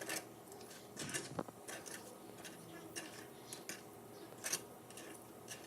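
Light, irregular clicks and taps of kitchen utensils against cookware, about a dozen, with louder knocks about a second and a half in and again near four and a half seconds.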